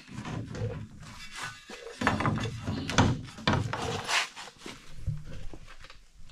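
Workshop handling noise as a wooden transom board and a transom template are worked against a boat hull: scattered knocks and scrapes, with a few sharp clunks about halfway through.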